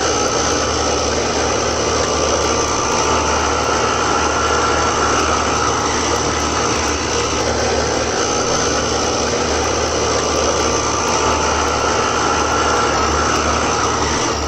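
Carrier Sentry GH4SAN448 heat pump running in heat mode: compressor and fan making a loud, steady rush over a low hum, with higher whine tones that swell and fade.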